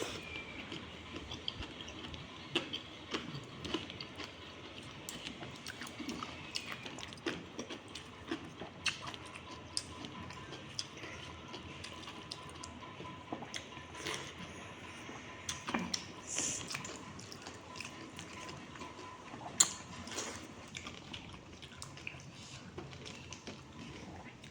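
Close-up eating sounds: wet squelches and small clicks of watery curd rice (dahi pakhala) being mixed, scooped and chewed. One sharp click about two-thirds of the way through is the loudest sound.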